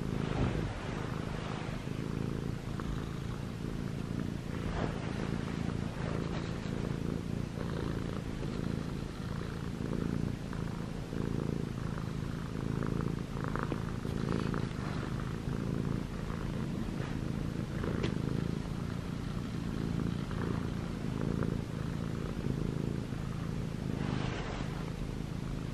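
Six-month-old Munchkin kitten purring steadily and continuously, close up, while it kneads and mouths a soft pajama blanket in contentment.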